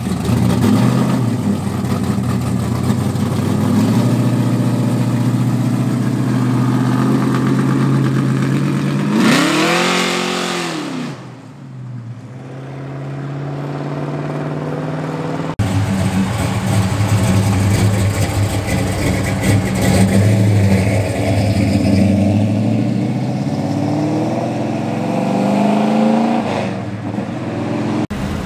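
Classic muscle car engines revving and accelerating hard. A first-generation Chevrolet Camaro's engine runs loud and steady, then sweeps up and back down in pitch about nine to eleven seconds in. After an abrupt change, another classic car's engine accelerates with its pitch climbing in steps.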